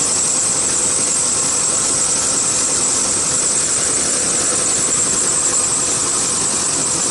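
A 1999 Chevy Suburban's engine idling steadily under the hood with the A/C running while refrigerant is being charged in, with a steady high hiss on top.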